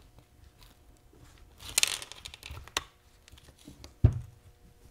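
Metal parts of a Hurst four-speed shifter handled on the bench while its bridge plate is fitted: a scraping rustle about two seconds in, a sharp click, then a dull thump near the end as the shifter body knocks down.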